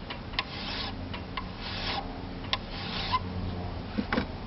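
Fine-toothed hand file stroked across the side of a Norwalk juicer cutter blade clamped in a vise, sharpening it. About three rasping strokes roughly a second apart, each starting with a click.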